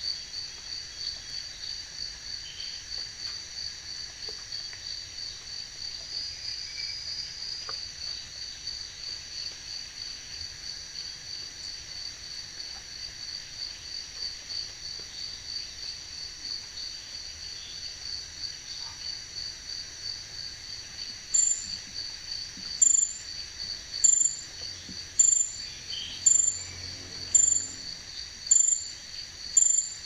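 Crickets trilling: a steady, fast-pulsing high drone. About two-thirds of the way in, a louder, very high chirp starts repeating about once a second.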